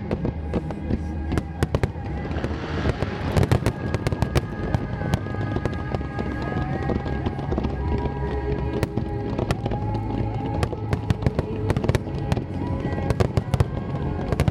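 Aerial fireworks going off in many irregular bangs and crackles, thickest about a quarter of the way in and again near the end, with music playing underneath.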